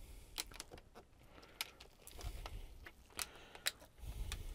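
Faint rustling and scattered light clicks of a thin plastic reflector sheet being pressed and smoothed by hand over a TV's LED backlight strips and lenses. A couple of dull low bumps come about halfway and near the end.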